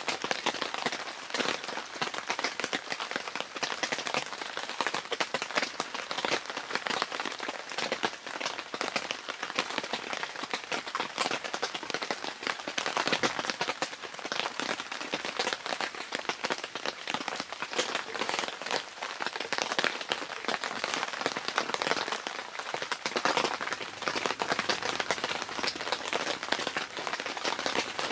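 Steady rain falling on the fabric of a Helsport Varanger Dome tent, heard from inside as a dense, even patter of drops.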